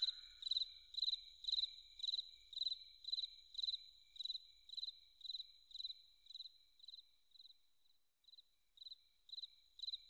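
Cricket chirping at a steady rate, about two short chirps a second, growing fainter with a brief pause about eight seconds in.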